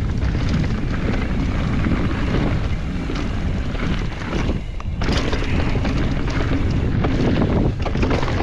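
Wind buffeting the camera microphone on a mountain bike riding down a rough trail, with a steady low rumble and rattling clicks from the bike over the ground. The noise briefly drops about four and a half seconds in.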